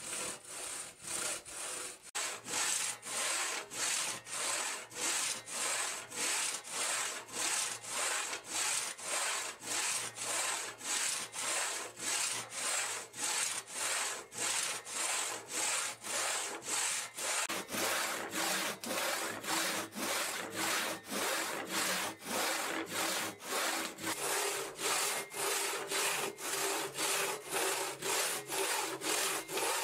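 Large hand saw crosscutting a wooden timber beam in steady back-and-forth strokes, about two a second. Partway through, the strokes take on a lower tone.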